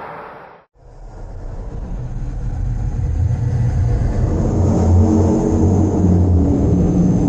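Low, deep rumbling drone of a horror creature sound effect. It swells in from silence about a second in and grows louder, with a deep wavering hum pulsing underneath.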